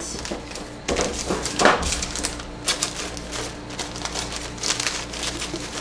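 Honeycomb kraft paper wrap and cardboard rustling and crinkling under the hands as soap boxes are pressed and shifted inside a shipping box, in irregular light crackles and taps.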